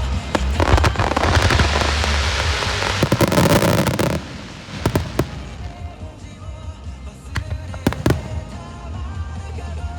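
A fireworks display synchronised to music. For the first four seconds a dense barrage of bursts and crackling runs on, then it drops to a few single sharp bangs, a pair of them a little after the middle. Music with singing plays throughout.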